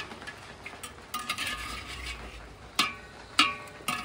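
Spoon stirring vegetables shallow-frying in oil in a handi, scraping against the pot, with a faint sizzle. Three ringing knocks of the spoon on the pot come in the second half.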